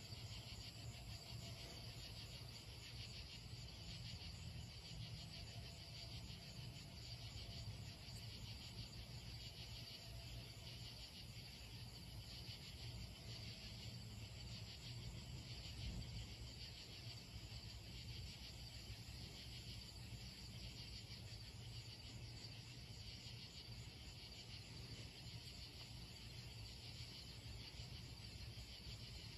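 A chorus of night insects chirring steadily in fast, even pulses, with a faint low hum underneath.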